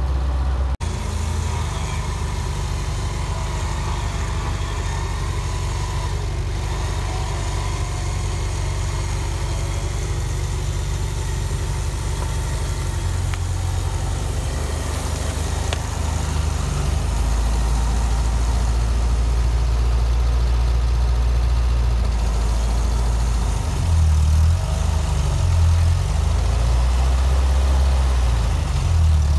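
Steyr-Puch Pinzgauer 710M's air-cooled four-cylinder petrol engine running at low revs as the truck works through deep mud, swelling briefly twice near the end.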